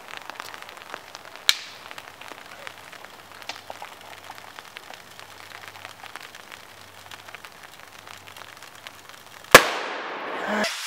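A dry ice bomb bursting inside a wicker picnic basket: one loud bang about nine and a half seconds in, after a long stretch of faint scattered ticks. A rushing noise dies away over about a second, then a second sharp crack comes just before the end.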